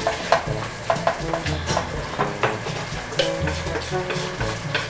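Chopsticks stirring instant jjajang noodles and sauce in nonstick frying pans, with frequent irregular clicks and scrapes against the pans over a steady sizzle.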